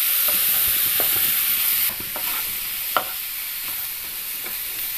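Sliced button mushrooms in onion-tomato masala sizzling in a nonstick pan while a spatula stirs them, with scattered taps and scrapes of the spatula against the pan, the sharpest about three seconds in. The sizzle drops somewhat about two seconds in.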